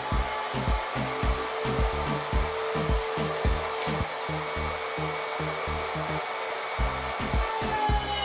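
Handheld router running steadily as it cuts along a straightedge through solid ash, under background music with a steady beat.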